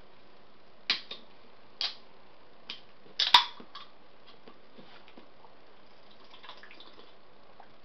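Ring-pull tab of an aluminium drink can being worked open: a few light clicks, then a single sharp snap with a brief tail a little over three seconds in as the tab breaks the seal.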